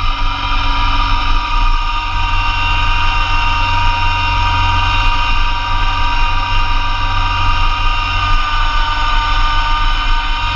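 Massey Ferguson GC2300 compact tractor's diesel engine running steadily, with a steady high whine over the low engine hum.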